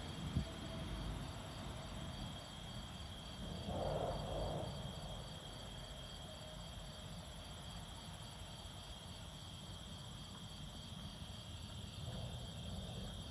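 Night insects chorusing, crickets among them: several steady high trills, one pulsing about three times a second, over a low rumble of wind on the microphone. About four seconds in, a short louder sound of about a second rises over the chorus.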